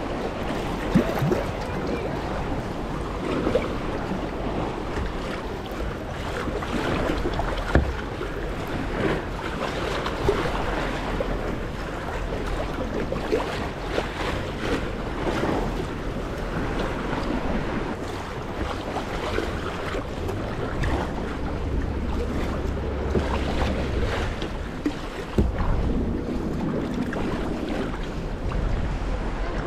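Sea kayak being paddled through choppy sea water: paddle blades dipping and splashing, water slapping against the hull, with wind buffeting the microphone at times.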